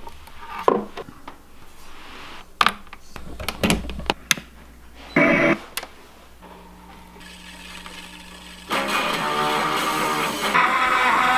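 Several scattered clicks and knocks, then background music with guitar comes in suddenly about three-quarters of the way through and keeps playing.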